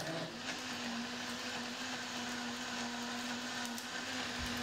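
Rhino Blender motor running at full speed, churning a jug of water with soil, snail shells, leaves and fish into a muddy slurry. It is a steady whirring hum that settles in pitch within the first half-second and starts to wind down at the very end.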